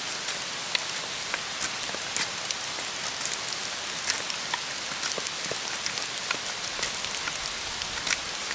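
Steady rain pattering on leaves, with many small irregular drop ticks, over the scrape of a knife blade shaving strips off an ash stake.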